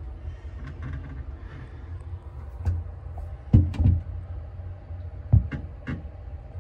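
Commercial ice machine humming steadily just after being plugged in, with several dull knocks and a few light clicks.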